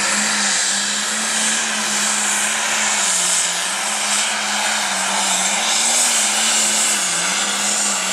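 Turbocharged diesel engine of a 10,000 lb pro stock pulling tractor running flat out under load as it drags the weight sled down the track. It is a steady, loud drone whose pitch wavers slightly and dips briefly a little after seven seconds.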